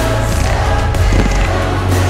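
Music soundtrack with a heavy, steady bass and choir voices.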